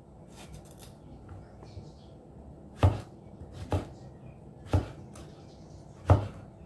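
Large kitchen knife chopping eggplant on a wooden cutting board: four sharp knocks of the blade striking the board, roughly a second apart, starting about three seconds in.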